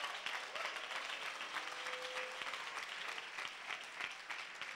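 A congregation applauding: steady clapping from many hands.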